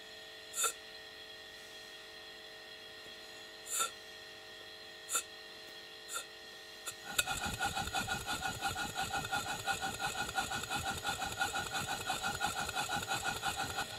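Stuart Turner 5A model steam engine turning over slowly with a few separate exhaust puffs, then about halfway through picking up speed into a rapid, even run of exhaust beats. The evenness is the sign of correctly set valve timing: no jumping or skipping beats.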